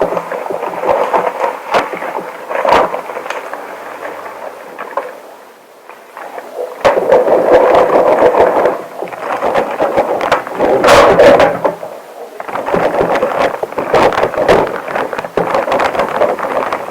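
Close-miked rubber sounds: breathing through a gas mask and long latex gloves rubbing and squeaking, rising and falling in stretches of a few seconds with short dips between.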